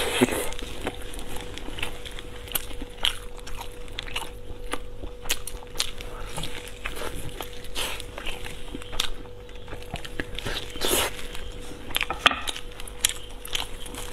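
Close-miked mouth eating braised pork ribs: irregular chewing and biting clicks as meat is pulled off the bone. A faint steady hum runs underneath.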